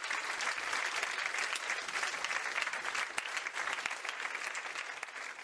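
Crowd applause, many hands clapping at once, beginning to fade over the last couple of seconds.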